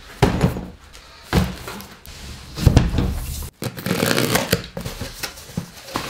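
Cardboard parcel boxes being handled and opened: several dull thuds, then rustling and scraping of cardboard flaps.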